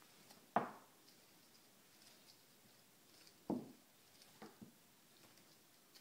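A few soft thumps and scuffs of a cat rolling and swatting on a hardwood floor. The loudest comes about half a second in, another about three and a half seconds in, and two lighter taps follow about a second later.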